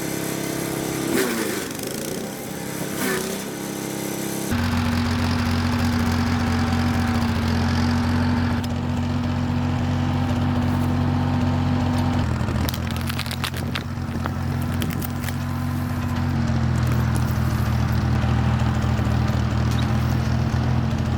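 Vintage Ford 4000 tractor engine running steadily under work, its note shifting abruptly about four and a half seconds in and stepping down slightly twice later on.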